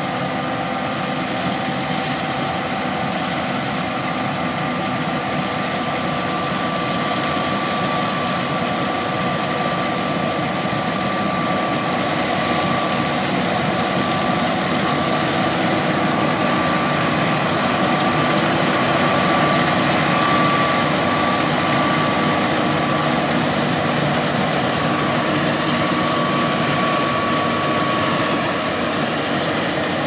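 John Deere S780 combine running while harvesting soybeans: a steady mechanical drone with several steady whining tones on top, swelling a little about two-thirds of the way through and easing again.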